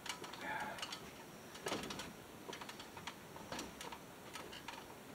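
Faint, irregular clicks and taps from a white PVC downspout pipe and its fittings being handled and fitted in place.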